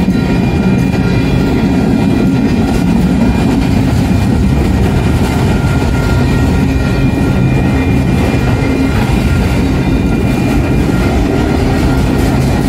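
Freight train cars, autoracks and flatcars, rolling steadily past at close range: a loud, even rumble of wheels on rail with clickety-clack, and a few faint steady high-pitched tones ringing above it.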